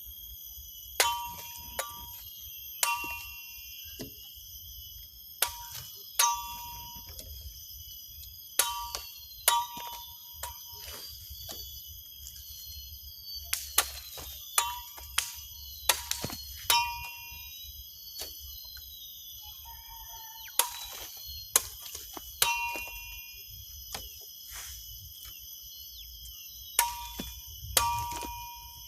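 Golok (Indonesian machete) striking in irregular single blows, about twenty, each leaving the blade ringing briefly with a metallic tone. A steady high insect shrilling carries on behind.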